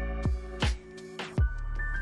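Background music: held synth-like notes over a deep bass, with a few sharp drum hits that drop in pitch.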